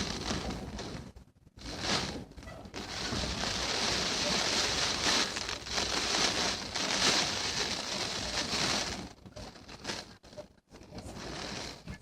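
Typhoon storm-force wind gusting outside, heard through window glass with the phone pressed against it. It is a rushing noise that swells and drops back, with a short lull about a second in and another easing near the end.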